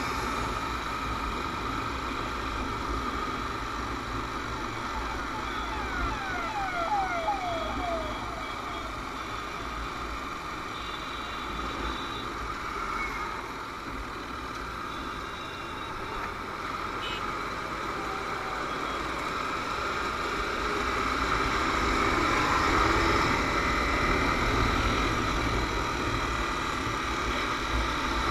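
Onboard sound of a Honda CBR250R's single-cylinder engine running at road speed, mixed with wind rush and passing traffic. A brief series of high chirps comes about six seconds in, and the overall sound grows louder in the second half.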